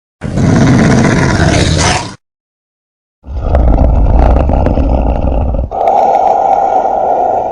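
Designed monster roar sound effects: one loud roar of about two seconds, a pause of about a second, then a longer rumbling roar that shifts to a narrower, higher-pitched tone about halfway through.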